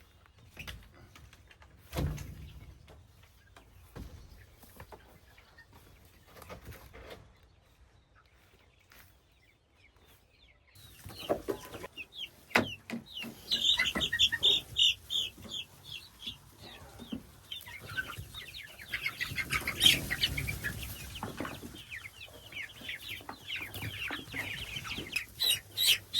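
Young broiler chickens peeping rapidly and loudly while being caught by hand, with scuffling and knocks. The first ten seconds are quiet apart from a few faint knocks and one thud about two seconds in; the peeping starts about ten seconds in.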